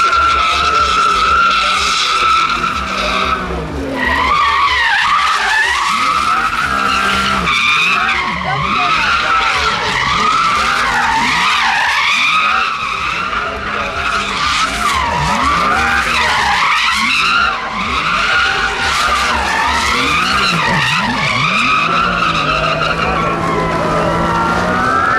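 Car tyres squealing in long skids, the squeal wavering and sliding up and down in pitch, over the low running of the engine.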